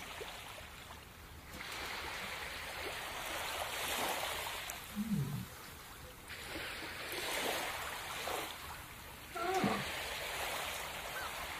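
Ocean surf washing in and out, the hiss of the waves swelling and fading every few seconds. A short low voiced sound comes about five seconds in and another near the end.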